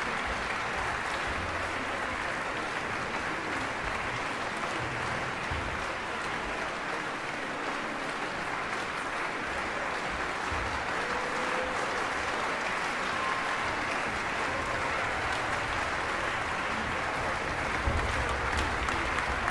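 Large audience in a concert hall applauding steadily.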